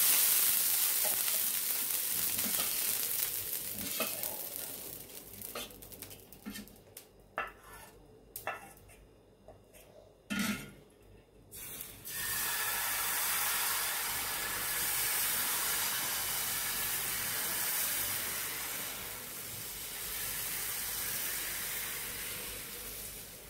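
Water splashed on a hot tawa hisses into steam and dies away, followed by a few clinks of a small metal cup against a steel bowl of batter. About twelve seconds in, a steady sizzle starts as the batter is poured onto the hot tawa.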